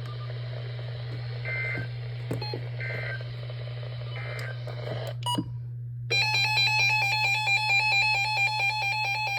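Weather radio broadcast over a steady hum: three short bursts of SAME digital data about a second and a half apart, the end-of-message code that closes a warning. About six seconds in, a loud electronic alarm starts beeping in a rapid repeating pattern.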